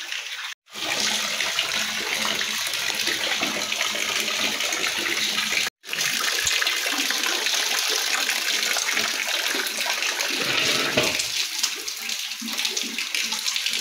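Heavy rain falling steadily, a dense hiss of water splashing. It breaks off for a split second twice, once near the start and once about halfway through.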